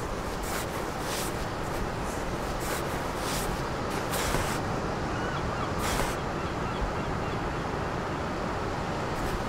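Steady rushing background noise with scattered brief clicks and rustles.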